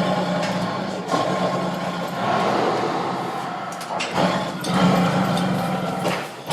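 Tiger growling and snarling: a run of rough, rumbling growls, with new ones breaking in about a second in and again around four to five seconds in.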